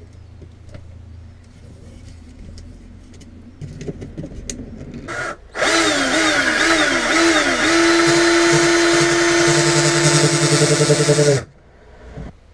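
Electric hand power tool: a short blip, then the motor runs for about six seconds, its pitch dipping and rising three times as the trigger is worked before holding steady, and it stops suddenly. Light handling clicks come before it.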